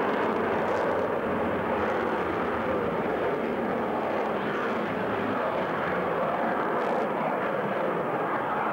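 Fighter jet's engines running as the aircraft flies a display overhead: a steady rushing roar with no clear rise or fall.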